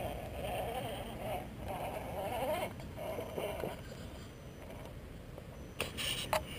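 Axial Wraith RC crawler's electric motor and gear drivetrain whining in uneven bursts, with the pitch wavering as the throttle is worked while the truck crawls up a rock. A few sharp knocks come near the end.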